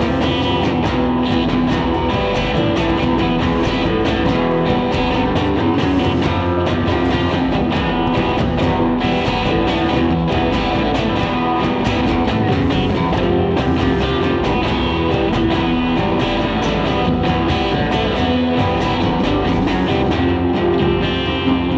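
Guitar played live in an instrumental passage: fast picking, with held notes ringing over one another.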